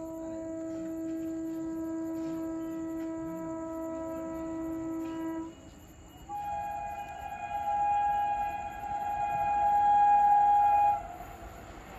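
Horn of an approaching WAP5 electric locomotive: a long, low blast, then after a brief gap a higher-pitched blast of about five seconds. The higher blast grows louder and cuts off sharply.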